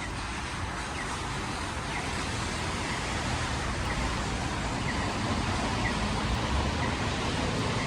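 Traffic on a rain-soaked city street: a steady hiss of tyres on wet road mixed with rain, growing slowly louder.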